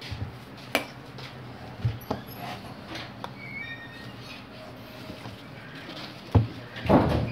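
Knife working a banana heart on a cutting board: a few sharp knocks of the blade, then a short, louder crunch as the fibrous layers are cut or pulled apart near the end.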